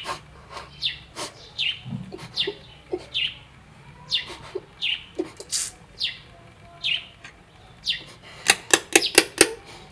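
A bird calling over and over, a short falling chirp repeated a little more than once a second. Near the end comes a quick run of about seven sharp clicks.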